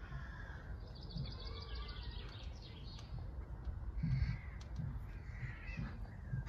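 Outdoor birds calling, including a rapid, repeated chattering call about a second in and a few shorter calls later, over a steady low rumble.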